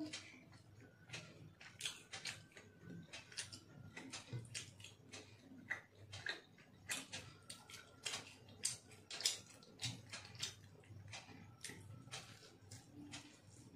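Eating by hand, heard close up: irregular wet clicks and smacks, several a second, from chewing and from fingers mixing egg biryani on a glass plate.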